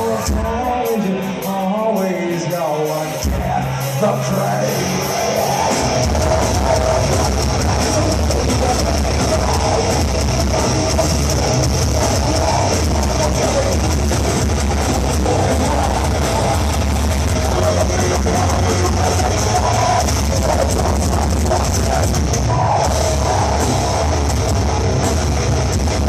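Live heavy metal band playing on a club stage, heard from within the crowd. A sparser melodic passage opens, then about five seconds in the full band comes in with heavy drums and distorted guitars.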